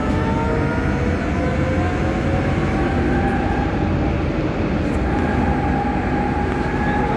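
A Duewag B80D light-rail car running, heard from on board: a steady rumble of wheels on rail under the whine of the electric traction drive, whose pitch climbs gently for the first few seconds and then holds steady.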